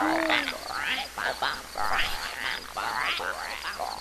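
A chorus of frogs croaking in short, rasping calls, several a second, opening with one last honking call from a goose or duck.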